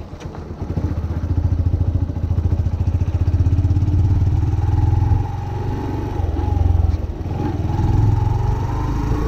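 Yamaha YBR 125's single-cylinder four-stroke engine running under way, picking up revs about a second in, easing off near the middle and pulling again toward the end.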